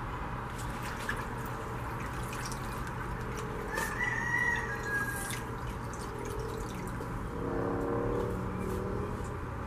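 Water sloshing and dripping as a guitar neck is dipped through floating enamel paint in a water bath and lifted out. Two bird calls sound in the background, a short high one about four seconds in and a longer, lower one near the end.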